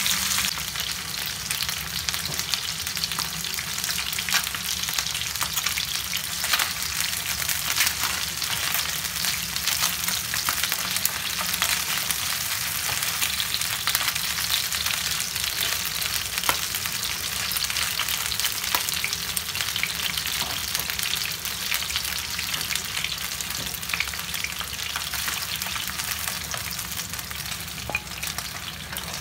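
Chicken wings and feet pan-frying in oil in a nonstick frying pan: a steady sizzle dotted with crackles and pops, with a spatula turning and scraping the pieces now and then.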